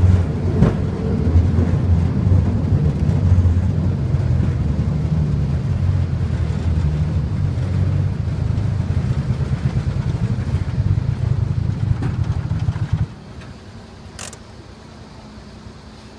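Open rail cart running along the track with a steady low rumble, which drops away sharply about thirteen seconds in as the cart comes to a stop. A single sharp click follows shortly after.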